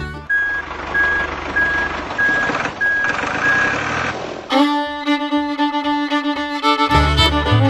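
A reversing alarm beeping about twice a second over the noise of a running vehicle, for about four seconds. Then fiddle music comes back in.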